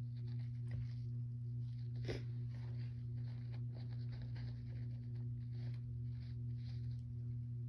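Steady low electrical hum with faint, scattered rustles and breaths from a person between sneezes, and one soft click about two seconds in.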